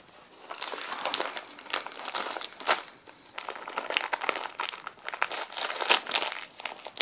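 Christmas wrapping paper crinkling and crackling in irregular spells as a West Highland white terrier bites and pulls at a wrapped present, with one sharp crack at about two and a half seconds.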